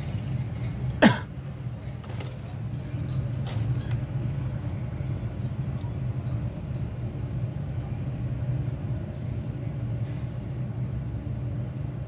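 A steady low hum or rumble, with a single loud sharp knock about a second in and a few faint ticks after it.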